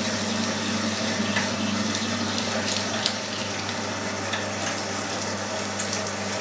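Electric meat grinder running with a steady motor hum while chunks of salted beef and lean pork are fed through its 5 mm plate, with scattered small clicks.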